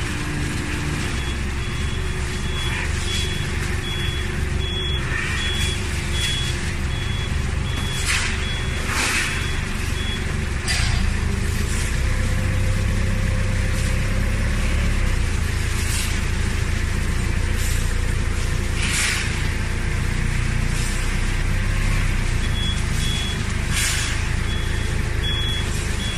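Hydraulic scrap metal baler running with a steady low hum that grows louder about eleven seconds in. A high warning beep pulses repeatedly for the first ten seconds and again near the end, and several short sharp noises break in now and then.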